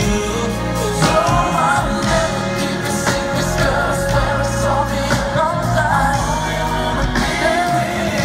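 Live R&B band music with a singer carrying a melody over sustained chords and bass.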